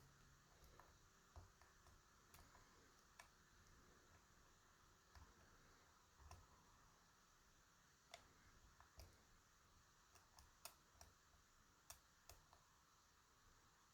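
Faint, irregular clicks and ticks of a lock pick and tension wrench working the pins inside a DOM RS Sigma lock cylinder, about a dozen spread over several seconds.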